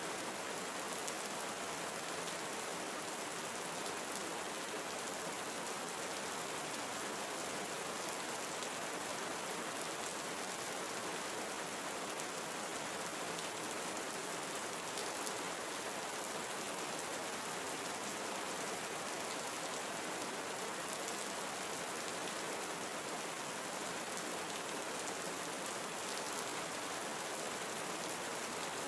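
Steady rain falling on forest foliage, an even hiss with fine patter of drops.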